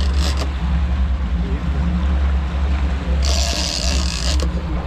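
Twin Mercury outboard motors running with a steady low rumble as the boat moves. About three seconds in comes a rushing hiss lasting about a second.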